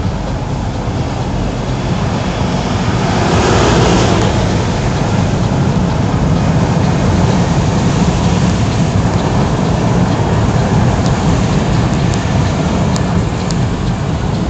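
Car driving on a rain-soaked road, heard from inside the cabin: a steady hiss of tyres on wet asphalt and rain over a low engine and road rumble. The hiss swells about three to four seconds in, and a few faint clicks come near the end.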